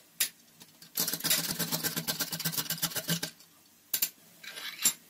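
Whole nutmeg being grated on a small handheld metal grater: a quick run of dry scraping strokes lasting about two seconds, followed by a couple of light clicks near the end.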